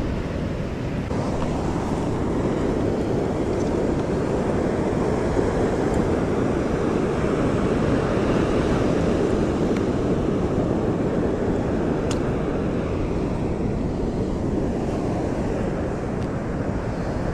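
Steady rush of wind on the microphone mixed with the wash of surf on the beach.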